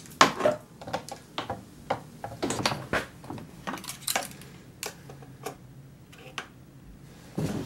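Irregular clicks, knocks and light metal clatter as a Stihl chainsaw's bar and chain are handled and refitted, then the saw's cap is put back on.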